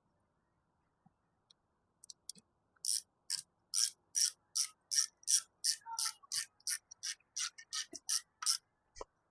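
Hand ratchet wrench being worked in short back-and-forth strokes, each back-swing giving a short burst of pawl clicks, about two to three a second. The clicking starts about three seconds in and stops near the end.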